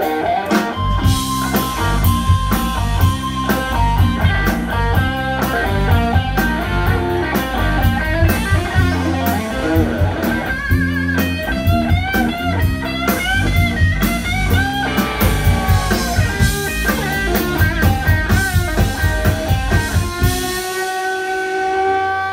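A live blues band plays electric guitars over a drum kit, with bending lead-guitar lines. Near the end the drums stop and a final held chord rings out.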